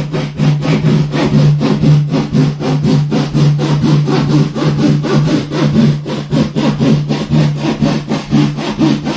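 Small handsaw cutting through an IKEA Lack table top of thin board over a cardboard core, in rapid, even back-and-forth strokes, about five a second.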